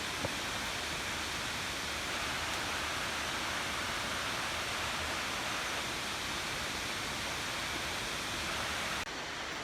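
Steady rushing noise of a waterfall, even and unbroken, dropping off abruptly near the end.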